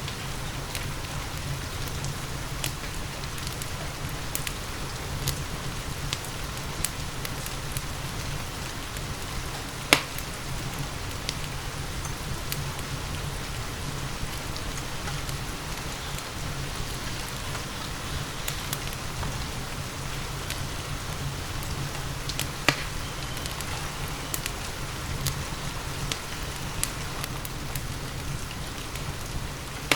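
Steady rain mixed with a crackling wood fire in a fireplace. Scattered sharp crackles run throughout, with two louder pops, one about a third of the way in and another about three-quarters of the way through.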